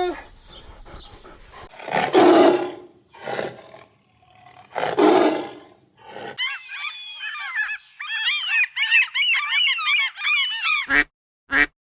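Animal calls: two rough, noisy calls about three seconds apart, then a dense chorus of many quick, high chirping calls, ending in a few short sharp calls.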